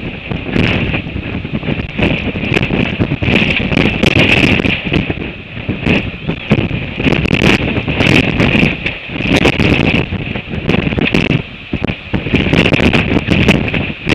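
Gale-force wind of 40 to 60 knots buffeting an exposed microphone. It swells and dips in gusts, with a steady high hiss and scattered sharp crackles.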